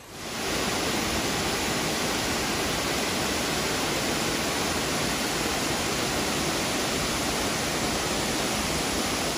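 A 40-foot cascading waterfall pouring over rock ledges into a plunge pool: a steady, even rush of falling water that fades in at the very start and holds at one level.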